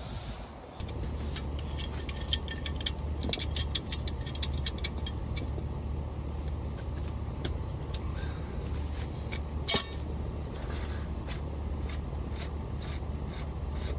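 Light clicks and clinks of the sewage pump's pipe union being unscrewed and handled, over a steady low hum that comes on about a second in. One sharp knock comes near the ten-second mark.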